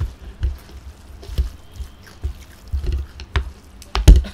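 Chow mein noodles being stirred and lifted with wooden chopsticks close to the microphone: irregular clicks and soft low knocks, the loudest a thump about four seconds in.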